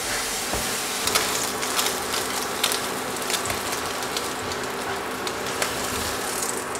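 A slice of French toast sizzling in a hot non-stick frying pan, with small scattered crackles and pops, as it is turned with a plastic spatula.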